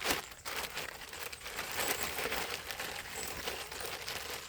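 Rustling and crinkling of a bag or pouch being rummaged through, with small irregular clicks and handling noise.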